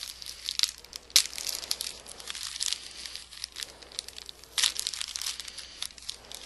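Bag crinkling and rustling as it is opened and an item is taken out: a dense run of crackles, with louder bursts about a second in and again past four and a half seconds.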